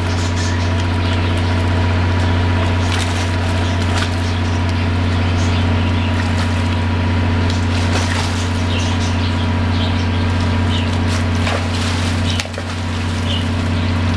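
Loud, steady low mechanical hum that dips briefly near the end, with water splashing in an inflatable pool as a swimmer dives and kicks.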